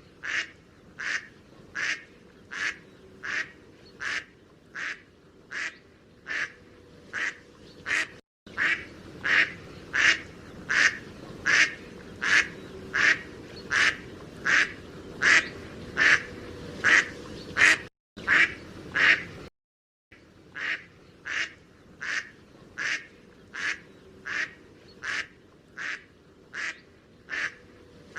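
Mallard duck quacking: a steady run of short single quacks, about three every two seconds, with brief cuts to silence about 8, 18 and 20 seconds in.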